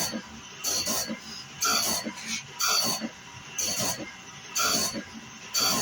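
Wood-Mizer BMS250MU CBN sharpener grinding a band saw mill blade tooth by tooth: a short grinding hiss with a high ringing tone about once a second as the wheel works each tooth in turn.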